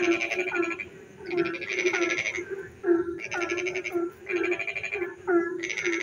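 A chorus of several frogs calling at night: a rattling pulsed call about a second long repeats every second or so, over short swooping notes and a steady lower pulsing call.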